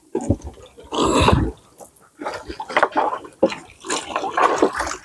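Irregular splashing and dripping of water as a wet fishing line fouled with marine growth is pulled up by hand from the water, with a louder splash about a second in and a run of short splashes and drips after.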